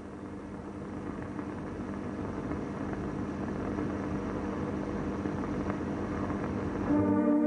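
A steady noisy rush with a low hum on an old film soundtrack, growing gradually louder; music comes in abruptly near the end.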